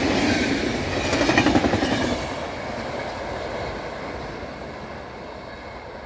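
Passenger coaches of a locomotive-hauled train rolling past, with a quick run of wheel knocks about a second and a half in. The train then draws away and its rolling noise fades steadily.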